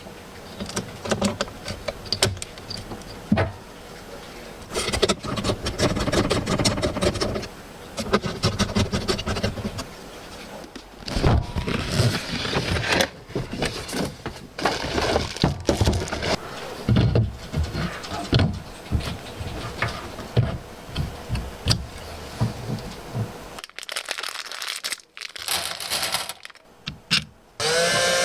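Computer parts being handled during assembly: a dense, irregular run of clicks, taps, knocks and rustling. Near the end comes a short rising whine from a small motor.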